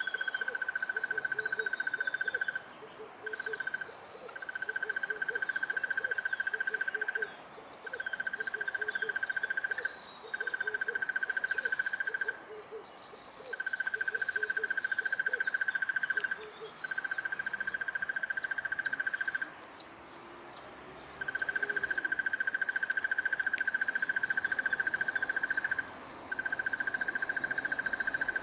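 Crested barbet giving its long, rapid, ringing trill, held for several seconds at a time and repeated again and again with short breaks, about nine runs in all.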